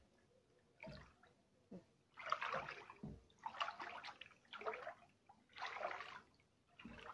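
Floodwater splashing and sloshing in about six surges, a little over a second apart, as someone wades through it.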